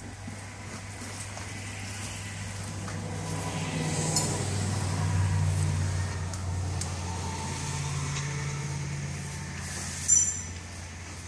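Firefighter turnout gear being pulled on in a hurry: heavy fabric rustling and clasps clinking, with one sharp metallic clink near the end. A steady low machine hum runs underneath.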